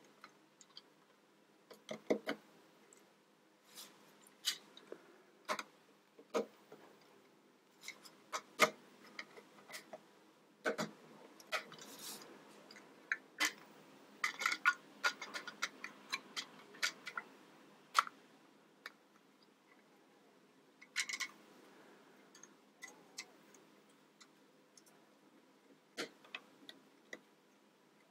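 Plastic Mega Bloks building bricks clicking and tapping as they are handled and pressed together. The clicks come singly and in small clusters, busiest around the middle.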